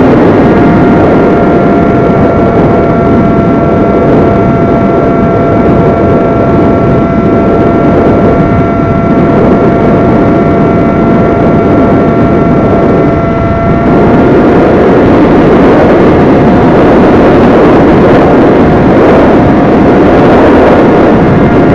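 XK A1200 RC airplane in flight, heard from its onboard camera: a steady high whine from its electric motor and propeller over heavy wind rush. The whine dips briefly in pitch and level a little past halfway.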